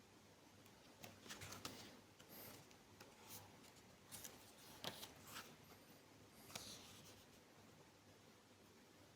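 Near silence with faint rustles and light taps of something being handled, clustered from about one second in to about seven seconds in, over a low room hum.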